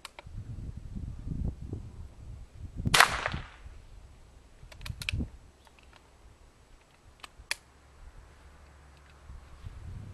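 A single shot from a Henry .22 LR lever-action rifle about three seconds in, with a short ringing tail. It is followed by sharp clicks as the lever is worked, in two groups a couple of seconds apart.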